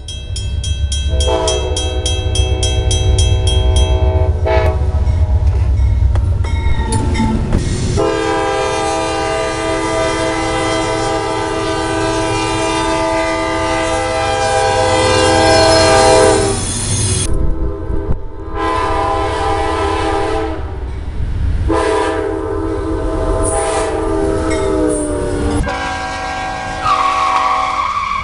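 CSX freight train's diesel locomotive sounding its air horn, a chord of several notes, in a series of blasts: a long one near the start, a much longer one from about 8 to 16 seconds, then shorter ones near the end. A low rumble of the locomotive and rolling train runs underneath.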